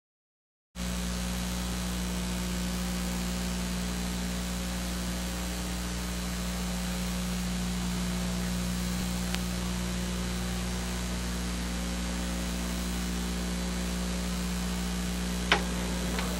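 Steady electrical mains hum with hiss in the recording, switching on abruptly just under a second in, with a single sharp click near the end.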